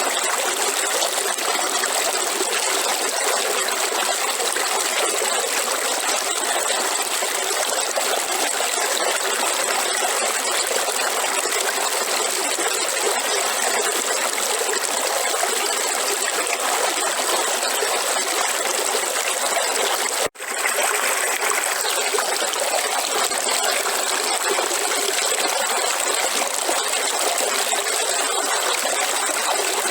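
River water running steadily over rocks, a continuous even rush. It is interrupted by a split-second dropout about two-thirds of the way through.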